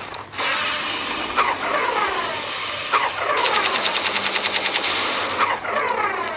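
Gunfire sound effects: single heavy shots, each trailing off with a falling tail, then a rapid automatic burst of about ten rounds a second lasting roughly two seconds, and one more shot near the end.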